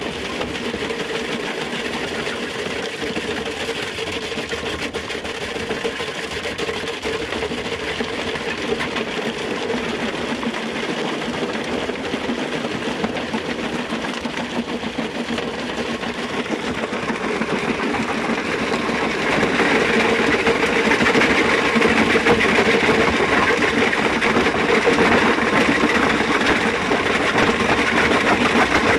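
Metso GP100 cone crusher running under load, crushing rock delivered by its feed conveyor: a steady mechanical din with a constant hum and a rattle of stone, growing louder about two-thirds of the way through.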